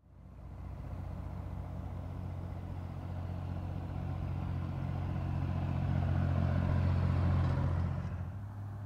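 Vintage farm tractor engine running steadily as the tractor drives past. It grows louder to its closest point about seven seconds in, then drops away.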